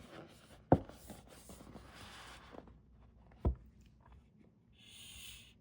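Handling the cardboard and paper packaging of a box album: two sharp knocks, about a second in and again about three and a half seconds in, with soft rustling between them and a brief scraping slide near the end.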